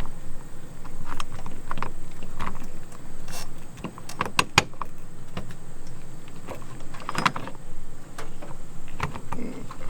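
Irregular clicks, taps and knocks of an RVLock keyless door handle and latch being fitted and lined up in an RV door, over a steady low hum.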